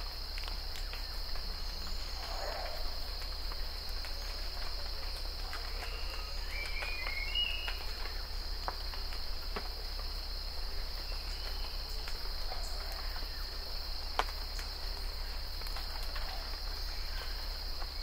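Rainforest morning ambience: a steady, high-pitched insect drone, a few bird chirps about six to eight seconds in, and scattered drops of rain ticking on foliage.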